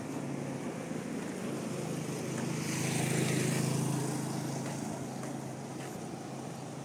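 A motorcycle passing close by on a city street: its engine hum and road noise swell about three seconds in and fade away, over steady traffic noise.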